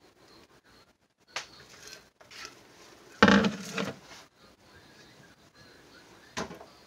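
Kitchen handling sounds on a countertop: light knocks and scrapes of a utensil working soap batter in a silicone loaf mould, and a louder clatter about three seconds in as the utensil and bowl are put aside.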